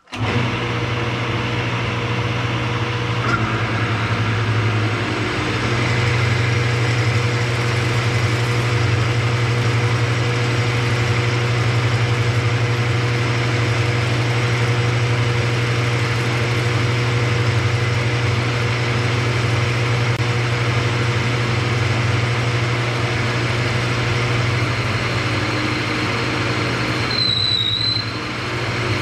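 Vertical milling machine spindle turning a 1-inch four-flute end mill at about 1000 rpm, cutting a stud boss on an aluminium casting with a little cutting oil: a steady, even running-and-cutting noise with no tool chatter. About a second before the end, a short high squeal from the cutter.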